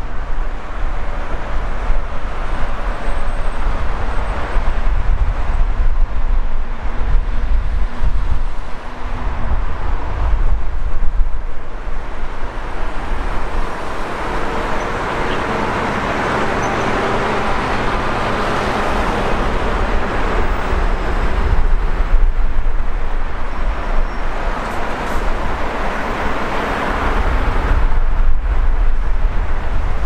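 Steady low rumble of traffic and diesel construction machinery, with louder swells of passing vehicles around the middle and near the end.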